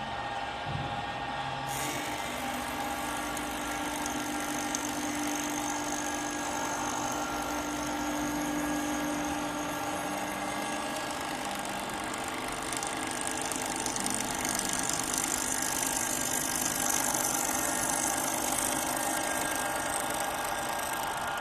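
CNC wood lathe running and machining wood: a steady spindle whine over a cutting hiss. The high hiss of the cutting grows louder a little past halfway.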